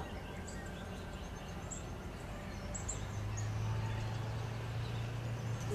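Outdoor background: scattered faint, high bird chirps over a low steady hum, which gets louder about halfway through.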